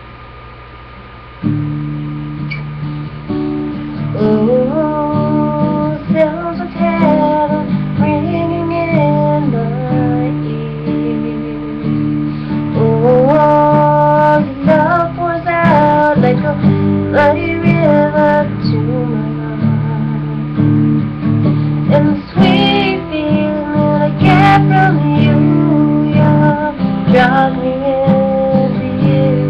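Acoustic guitar strummed in steady chords, starting about a second and a half in, with a woman singing a slow melody over it from about four seconds in.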